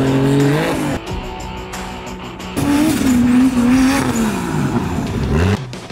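Off-road race buggy engines revving hard, the pitch climbing, cut off abruptly about a second in. A second engine comes in loud about two and a half seconds in, its pitch sagging and then climbing again before it cuts off near the end.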